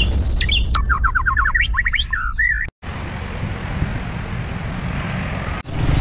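A bird chirping in a quick run of short rising notes over a low rumble, cutting off abruptly a little under three seconds in; after that only a steady noisy background hum remains.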